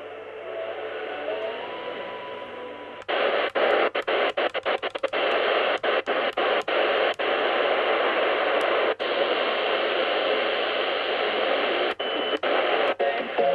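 A Qodosen SR-286 shortwave radio's loudspeaker giving out static as it is tuned quickly up the shortwave band between stations. For the first three seconds there is a weak, faint signal with a thin steady tone. Then loud hiss sets in, cut by many brief gaps, thickest for the first couple of seconds of it.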